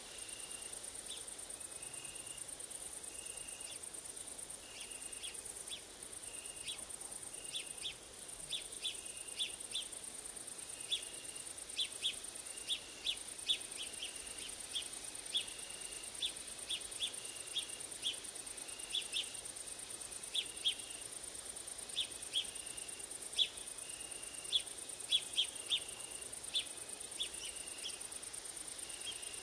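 Grasshoppers and crickets stridulating: a continuous high-pitched insect buzz with a shorter trill repeating in short bouts beneath it. From about eight seconds in, many short sharp chirps are scattered over it.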